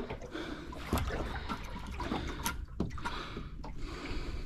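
Water lapping and trickling against the hull of a small boat at rest, with a few light clicks scattered through.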